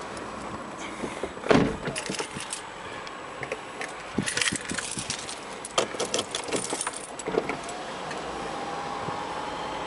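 Keys jingling and clicking as they are handled inside a Porsche's cabin, with a single heavy thump about one and a half seconds in. Near the end a steady hum sets in.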